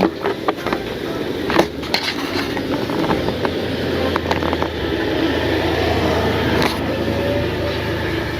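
Steady low rumble of a passing vehicle, with a few sharp clicks in the first two seconds.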